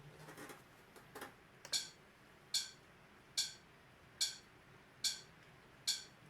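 Metronome-style count-in clicks, one about every 0.8 s, ticking a steady tempo; the first sharp click comes nearly two seconds in, after a few softer ticks and a faint rustle.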